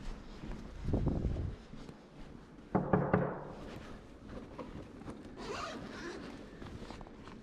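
An insulated delivery backpack being taken off and set down on a carpeted floor: dull thumps, the loudest about three seconds in, then rustling of fabric and straps around five to six seconds in.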